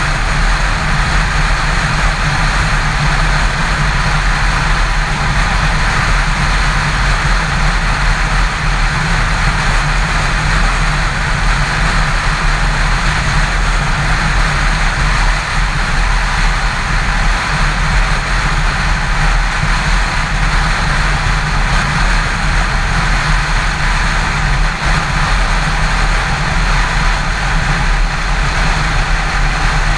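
Yamaha FZ6 motorcycle at steady highway cruising speed: wind rushing over the camera microphone, mixed with the 600 cc inline-four engine running steadily and road noise. Loud and unchanging throughout.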